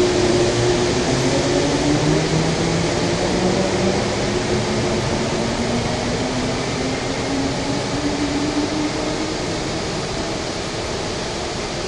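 Taiwan Railways EMU400 electric multiple unit departing, its traction motor whine rising in pitch as it accelerates away and slowly fading, over the steady rumble and hiss of the underground station.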